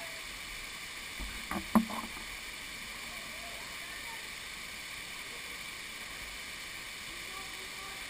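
Steady rush of a waterfall pouring down a rock face. A short cluster of sharp knocks close to the microphone comes about a second and a half in, the loudest at just under two seconds.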